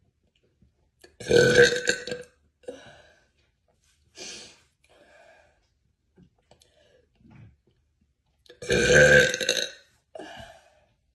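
A woman burping: two loud, deep burps about seven seconds apart, with a few much quieter short sounds between them.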